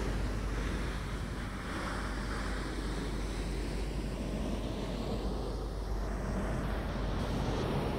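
Fingertips rubbing and scratching a soft, fluffy plush blanket close to the microphone: a steady, dense rustle with a deep rumble underneath.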